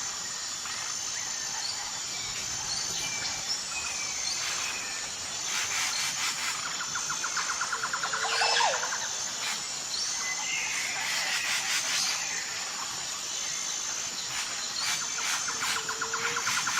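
Outdoor nature ambience: birds chirping and calling over a steady high insect drone, with two stretches of rapid trilling, one in the middle and one near the end.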